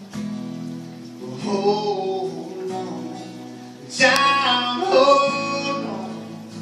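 Acoustic guitars playing a Christian song with a man singing two drawn-out phrases over them, the second and louder one about four seconds in.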